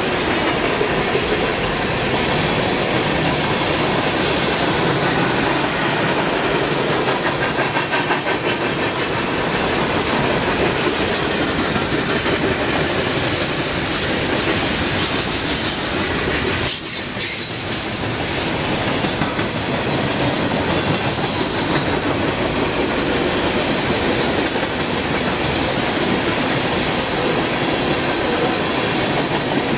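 Freight cars rolling past close by: a steady rumble with the clickety-clack of steel wheels over the rail joints, dipping briefly in level about seventeen seconds in.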